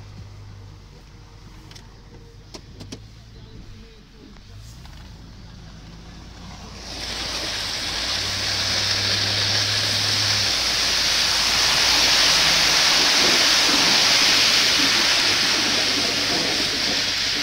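A plow vehicle's engine running steadily. About seven seconds in, a loud, even scraping rush starts as the plow blade scrapes the pavement and pushes ice and slush aside, throwing it off the end of the blade.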